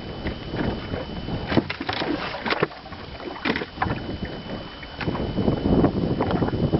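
Scattered knocks and clatter in a small fishing boat as a freshly caught walleye is handled in the landing net, growing into denser, louder rustling and knocking over the last couple of seconds. A faint steady high tone runs underneath.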